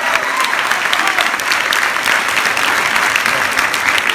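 Theatre audience applauding: steady, dense clapping from many hands, with a few voices faintly underneath.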